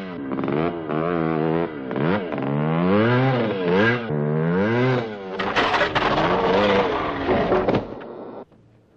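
Two-stroke Maico motocross bike engine revving, its pitch rising and falling over and over as the throttle is worked. It turns rougher and noisier after about five seconds, then cuts off shortly before the end.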